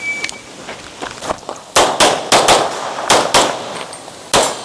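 Shot timer beeps once at the start signal, then the shooter opens fire on the stage: about seven gunshots, three quick pairs and a single shot near the end, starting a little under two seconds in.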